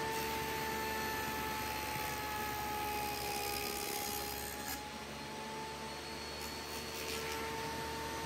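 DeWalt DW7480 jobsite table saw running with a Freud 8-inch dado stack, cutting a dado across a plywood board. The motor gives a steady whine that sags slightly in pitch under load through the middle of the cut and comes back up near the end.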